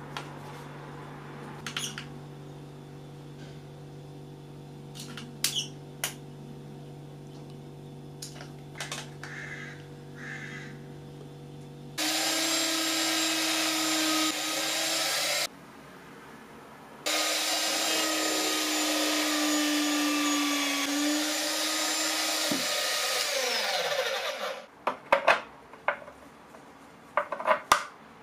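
Drill press drilling the centre hole in a brown plastic plate: it starts abruptly about twelve seconds in, breaks off briefly, runs on with a steady whine and cutting hiss, then winds down with falling pitch. Before it there is a low steady hum with a few light clicks, and a burst of sharp clicks and knocks follows near the end.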